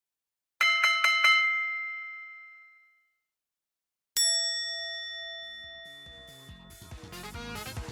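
Bell-like chime sound effect: a quick run of four bright strikes that ring out, then after a short silence a single strike ringing out. Background music fades in near the end.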